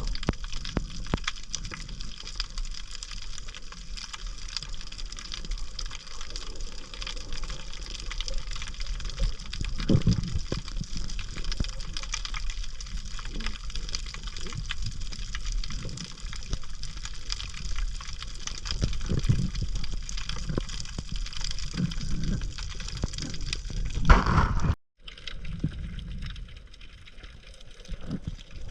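Water sounds on the camera's microphone during a dive, a steady wash with many fine clicks and crackles and a few louder surges. The sound drops out completely for a moment at a cut about three-quarters of the way through.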